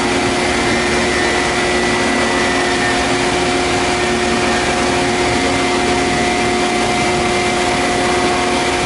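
CNC plate shearing and punching machine running between operations: a steady, unchanging hum over a hiss, with no cutting or punching strokes.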